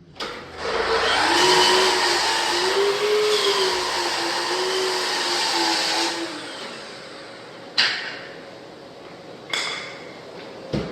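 A handheld electric power tool runs under load for about five seconds, its pitch wavering, then winds down. Three sharp knocks follow.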